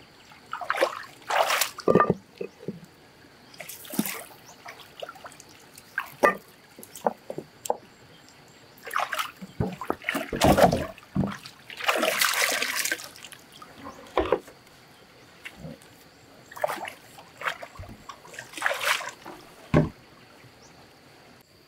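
Water splashing and sloshing in irregular bursts, with a few sharp knocks in between; the biggest splashes come about halfway through.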